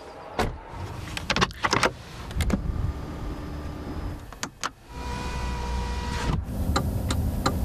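Car functional noises: several sharp clicks and knocks, then a small electric motor whirring steadily for over a second. Near the end come regular ticks, about three a second, over a low hum.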